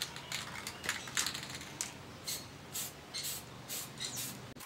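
Aerosol spray-paint can hissing in short bursts as paint is sprayed on, with a few clicks mixed in.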